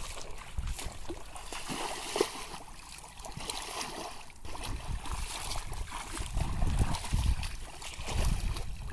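Shallow muddy paddy water sloshing and splashing as people wade and grope through it, in uneven bursts that get louder in the last few seconds.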